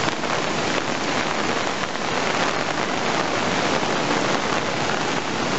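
Heavy hurricane rain pouring steadily, a dense even hiss with no let-up.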